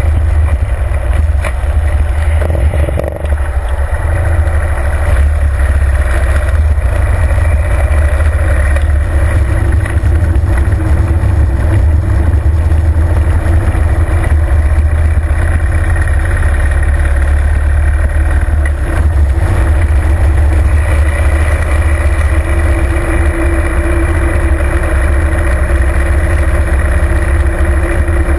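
Harley-Davidson Fat Bob's V-twin engine running as the motorcycle rides along at road speed, heard as a loud, steady low rumble. The sound dips briefly about three seconds in.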